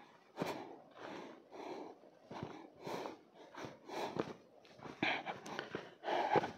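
A hiker's footsteps on a mountain trail with hard breathing, short noisy strokes about twice a second.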